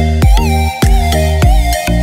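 Electronic dance music with a heavy kick-drum beat and sustained synth tones.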